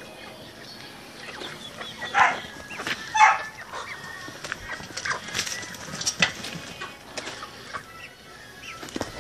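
Flock of Cochin and Brahma chickens clucking, with two loud squawks about two and three seconds in and scattered shorter clucks after.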